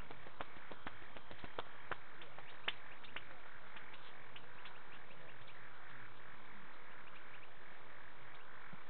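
Night bush ambience at a waterhole: a steady high insect chorus, with a run of sharp clicks over the first three seconds and fainter ticks after.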